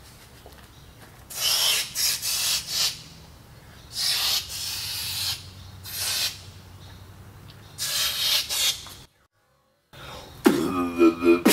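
Aerosol spray-paint can hissing in several bursts of about a second each. Near the end, after a brief dead gap, a beatboxer's mouth-made pitched sounds start up.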